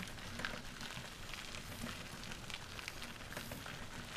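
Trike rolling along a rough dirt trail: a steady crackle of tyres on the path with many small clicks and rattles, the sign of a bumpy surface that shakes the ride.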